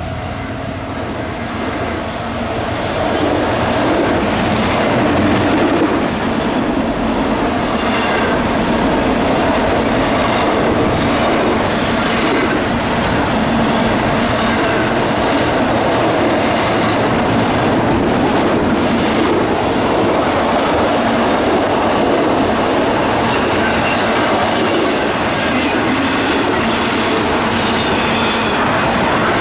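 Double-stack container cars of a CSX intermodal freight train rolling past, a steady loud rumble of steel wheels on rail with a repeated clatter as the wheels cross the rail joints.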